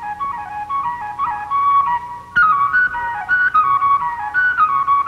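Background music: a wind instrument playing a quick melody of short stepping notes, which comes in louder about halfway through.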